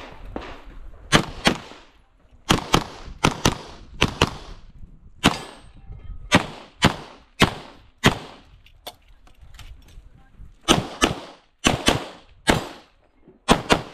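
CZ Shadow 2 9x19 pistol firing rapid shots during an IPSC stage, mostly in quick pairs (double taps), about twenty in all, with short pauses between groups as the shooter moves between positions. Each shot has a short echo.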